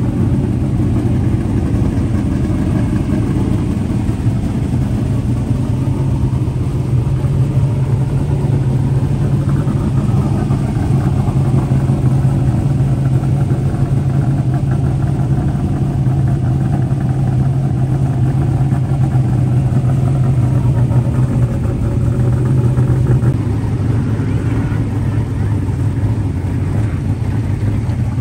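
A vehicle engine running steadily, a low drone that holds nearly level throughout with only slight shifts in pitch.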